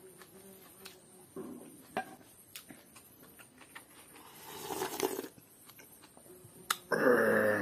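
Close-up eating sounds: soft mouth and finger clicks while chewing, then a slurp from a bowl held to the lips about halfway through. Near the end a man's voice gives a short loud vocal sound.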